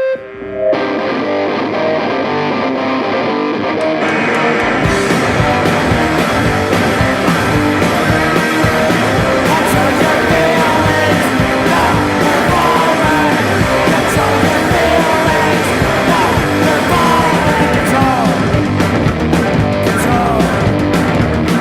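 Punk rock song starting with guitar, which grows much fuller about four seconds in as the rest of the band comes in.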